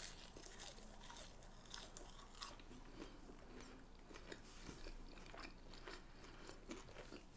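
A person chewing McDonald's French fries with the mouth close to the microphone: faint, with irregular small mouth clicks.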